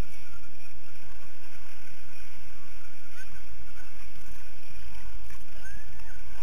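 Muddy water sloshing and splashing as people clamber through a pool of floating inflatable inner tubes, over a steady low rumble.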